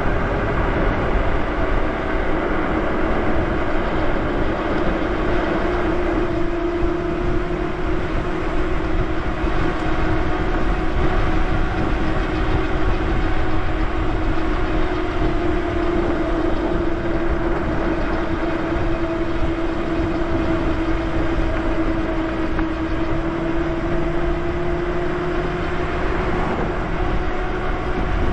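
Electric bike riding along a road: a steady whine from the drive, drifting slightly in pitch with speed, over wind and tyre rumble.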